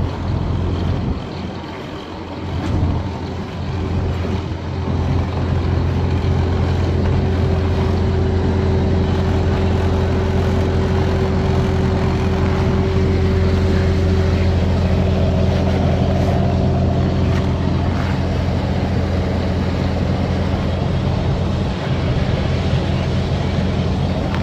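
Logan 40-foot straight conveyor running, its small 2-horsepower three-phase electric motor and belt giving a steady, even hum. The hum is softer for the first few seconds, then holds steady.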